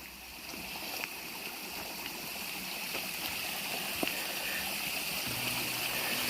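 River water flowing over rocks, a steady rushing that grows a little louder over the first couple of seconds.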